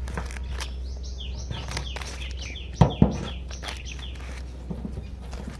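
A spade digging and scraping through packed, dry earth, with two heavy thuds close together about halfway through as the blade strikes the soil. Birds chirp repeatedly in the background.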